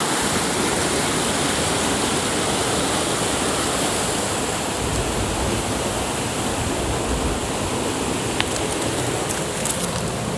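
Fast river current rushing steadily, with a few light clicks near the end.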